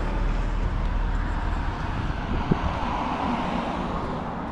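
Road traffic going by, a vehicle passing with its noise swelling about three seconds in, over a low rumble. A single short knock about two and a half seconds in.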